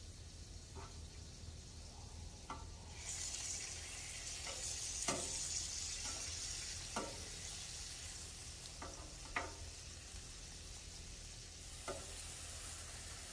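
Chicken sizzling on a Blackstone flat-top griddle while a metal spatula turns the pieces, clicking and scraping on the steel plate about once a second. The sizzle swells about three seconds in as pieces are flipped.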